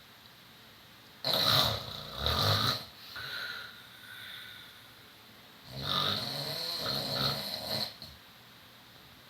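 Two snores: the first starts about a second in and breaks into several pulses that fade over about three seconds, the second is a steadier snore of about two seconds from about six seconds in.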